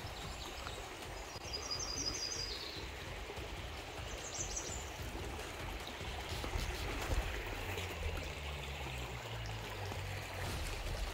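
Shallow river running over rocks: a steady rushing wash of water. A bird gives two short runs of quick high chirps in the first half.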